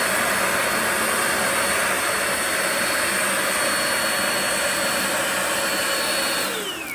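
Ryobi 18V ONE+ cordless stick vacuum (PCL720B) running, a steady high whine over a rush of air. Near the end it is switched off, and the motor's whine falls in pitch as it spins down.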